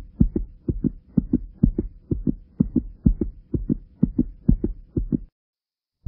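A fast heartbeat sound effect: low double thumps in a steady lub-dub rhythm, about two beats a second, over a faint steady tone, stopping abruptly about five seconds in.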